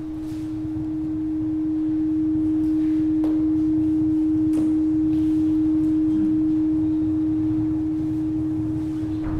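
A single steady low tone held throughout, swelling in loudness over the first couple of seconds and easing off slightly near the end, over a faint low rumble with a couple of soft clicks in the middle.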